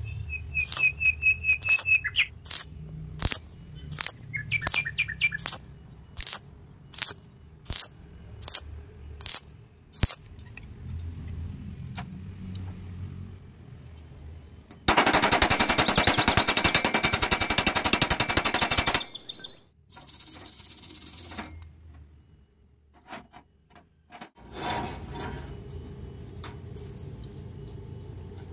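Stick welding on steel square tubing: a run of sharp cracks about one and a half a second for the first ten seconds, then a few seconds of loud, dense arc crackle midway. Birds chirp briefly near the start.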